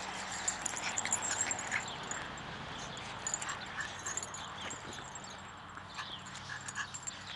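Pekingese puppies playing: scattered short whimpers and yips among small clicks.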